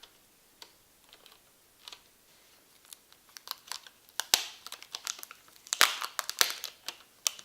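Plastic laptop parts being handled: crinkling and clicking, sparse at first, then a busy run of sharp clicks and crackles from about three seconds in.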